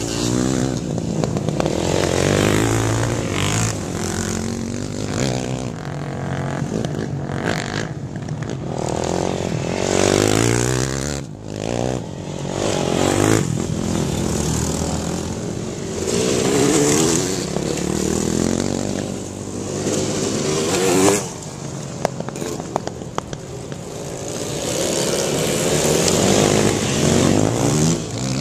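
Off-road racing motorcycles revving through a dirt corner and passing close by one after another, each engine's pitch rising and falling as it goes by.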